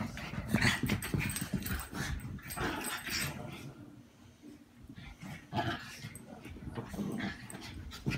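Small dogs play-fighting, growling and scuffling in irregular bursts, with a quieter stretch about halfway through.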